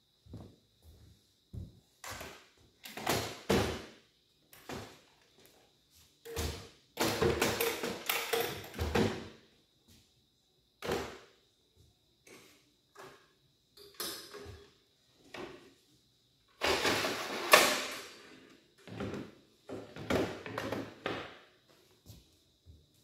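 Irregular knocks, clunks and short scrapes of tools and a steel-framed rolling tool table being handled. A longer scraping, rattling stretch comes about seven seconds in, and the loudest clunk comes about three-quarters of the way through.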